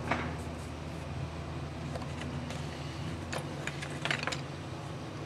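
Charcoal scratching against drawing paper in a few short strokes and taps, most of them bunched about two to four seconds in, over a steady low hum.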